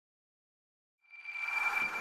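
About a second of silence, then an intro sound effect swells in: a rising whoosh with a steady high ringing tone, the start of a music sting.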